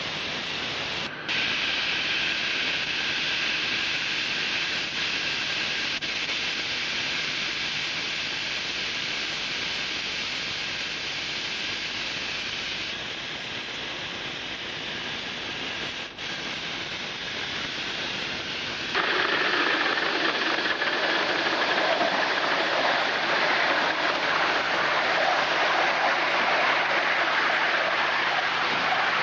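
5-inch gauge model LNER B1 4-6-0 steam locomotive running: a steady hissing rush of steam and wheels on the rails. It changes abruptly a few times and gets louder about two-thirds of the way through.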